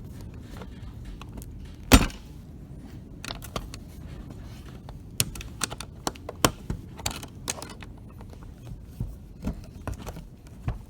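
Screwdriver tip clicking and scraping against a semi truck's door lock as it is pried at to get the lock cover off, with one hard clack about two seconds in and scattered small metallic clicks after.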